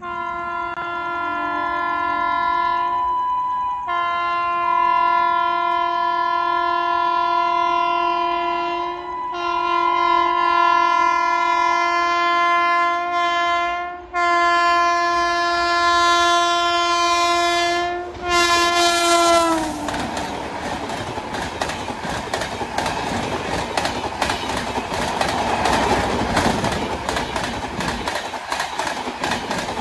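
Electric locomotive's horn sounded in long, loud, multi-note blasts with a few short breaks, its pitch dropping as the locomotive passes about twenty seconds in. After that, the coaches of a passenger train rush past at speed with a steady rattle and clickety-clack of wheels.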